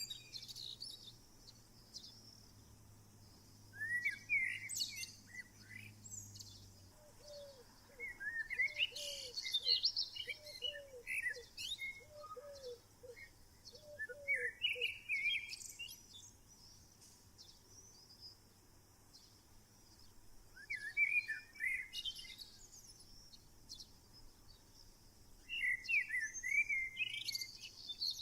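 Wild songbirds singing short, warbling, high-pitched phrases every few seconds. In the middle, a lower short note repeats about once a second for several seconds.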